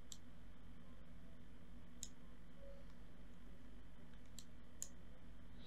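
Four sharp computer mouse clicks, spaced unevenly, over a faint steady low electrical hum.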